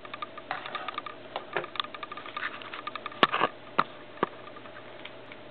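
A cat chattering at something outside the window: a fast, irregular run of small clicks from its jaw for about three seconds, then three sharper clicks a little over three to four seconds in. The uploader takes the trembling for shivering.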